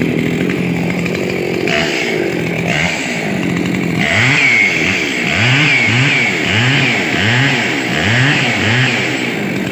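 Repaired two-stroke chainsaw engine running, idling steadily at first, then revved in quick throttle blips, about seven rises and falls in pitch from about four seconds in, before dropping back to idle near the end.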